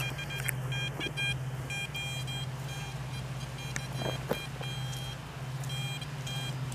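Metal detector sounding repeated short beeping target tones over a buried target, the tones breaking off and starting again, over a steady low hum.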